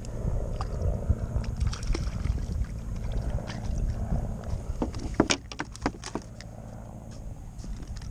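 Wind rumbling on the microphone over the wash of sea water around a sit-on-top kayak. About five seconds in comes a quick run of sharp clicks and knocks.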